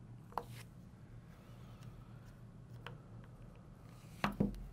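Small clicks of a precision screwdriver working pentalobe screws into an iPhone's bottom edge, over a low steady hum. Near the end come two louder knocks, close together, as the phone is handled and set down on the work surface.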